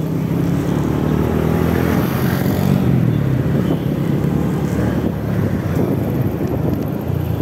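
Motor vehicle engine running steadily while riding along a city street, with road and traffic noise.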